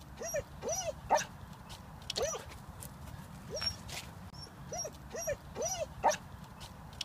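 Dog whining eagerly at a squirrel up a tree: short rising-and-falling whimpers, two or three at a time, repeated every second or two.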